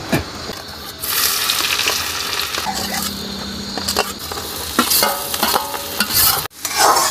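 Sliced onions, green chillies and garlic going into hot oil in a steel kadhai. The oil sizzles up sharply about a second in, with a metal spatula clinking and scraping against the plate and pan.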